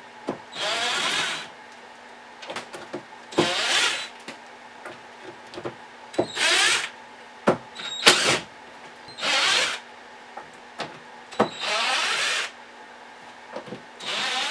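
Power drill-driver spinning out 1/4-inch hex-head housing screws from a Jeep CJ7 heater box, in six short bursts of under a second each, about every two and a half seconds. Small clicks of the screws and the tool being handled fall between the bursts.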